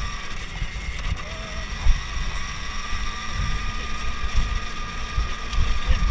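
Alta Redshift MXR electric dirt bike riding over gravel: a steady high whine from the electric motor and chain drive over an irregular low rumble with knocks from the rough track.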